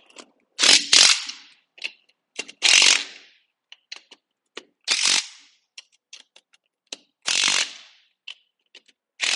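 Impact wrench with a 9/16 socket running the nuts down on a sprint car wheel. It fires in about six short bursts of hammering, each a second or less, with sharp clicks of socket and nuts in between.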